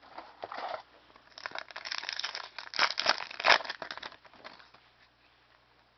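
Crinkling and crackling of a foil trading-card pack wrapper being handled and torn open, with the card stack clicking as it is pulled out. It is densest in the middle and stops about a second and a half before the end.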